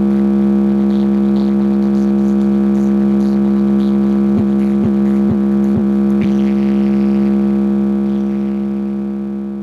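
Electronic music: a loud synthesizer drone holding two steady notes, broken in the middle by five quick downward pitch drops about two a second, then slowly fading out near the end.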